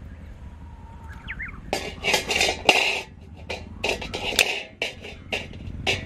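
Metal clanking and scraping as a round wire mesh grate is set into a steel round BBQ grill bowl and shifted with metal tongs. It is a quick run of clanks and rattles starting about two seconds in.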